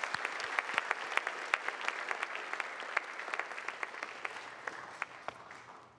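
Audience applauding, many people clapping at once; the clapping thins out and dies away near the end.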